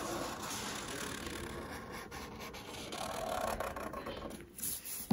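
Black Sharpie marker drawing circles on a sheet of paper, the felt tip rubbing and scratching across the paper in a few strokes.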